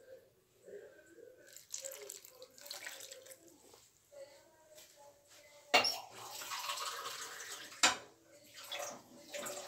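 Water poured from a glass into a stainless steel saucepan of cut apple and lemon pieces, splashing over the fruit in several pours. Two sharp knocks come about six and eight seconds in.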